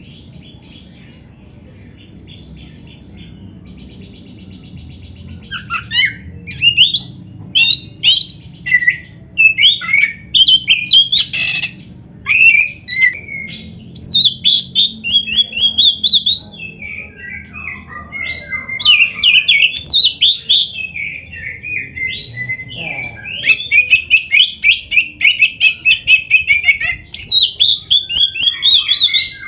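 Black-breasted Oriental magpie-robin (kacer) singing a loud, varied song of whistles, chirps and fast chattering trills, packed with mimicked phrases (isian). It starts faint with scattered chirps and a quick trill, turns loud about six seconds in, and runs into long rapid trills in the second half.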